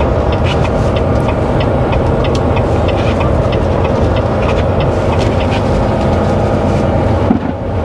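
Semi truck's diesel engine running, heard inside the cab as a steady low rumble, with frequent small rattles and clicks from loose things in the cab.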